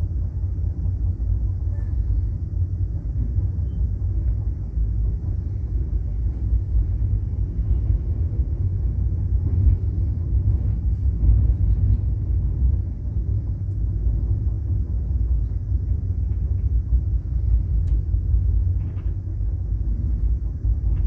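Steady low rumble of a passenger train running, heard from inside the carriage, with a few faint clicks.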